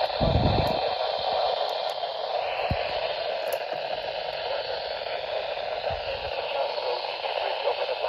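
Weather radio speaker giving out a steady static hiss between parts of the broadcast, with a few dull knocks from a hand handling the radio: the first about half a second in, others near the middle and about six seconds in.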